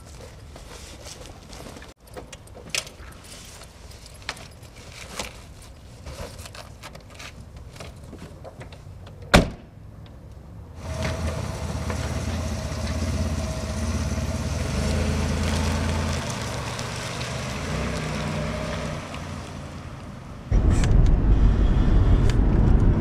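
Scattered footstep clicks, then one sharp bang about nine seconds in, like a car door shutting. A sedan's engine then starts and runs steadily. Near the end a much louder low rumble sets in as the car drives off, heard from inside the cabin.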